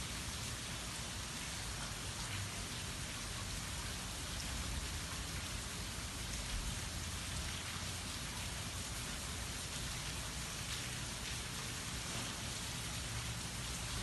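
Steady light rain falling, an even hiss with no thunder.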